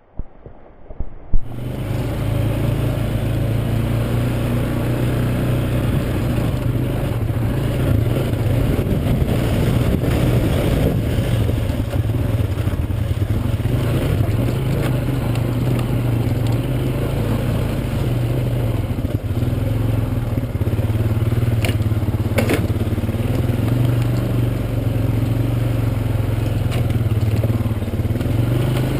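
Motor vehicle driving, its engine running steadily with road noise, starting about a second in after a couple of knocks, with a few light clicks later on.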